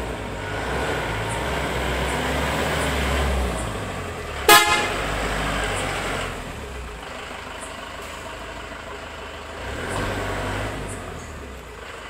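Tata 407 minibus's diesel engine running as the bus pulls away, with one short blast of its air horn about four and a half seconds in, the loudest sound; the engine swells again near the end.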